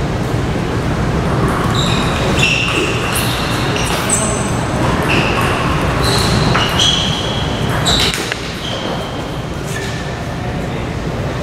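Table tennis rally: the celluloid-type ball ticking off bats and table about once a second, with short high-pitched squeaks, over steady hall noise. The rally stops about two-thirds of the way through.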